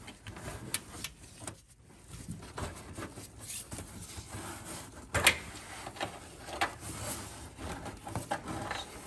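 Speedometer cable being worked by gloved hands up and out through a car's engine bay. The cable and gloves rustle and scrape against the hoses and metal around it. There are a few sharp clicks and knocks, the loudest about five seconds in.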